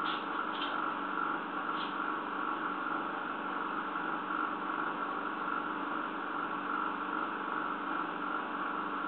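Steady hum and hiss, unchanging throughout, with a few faint ticks in the first two seconds.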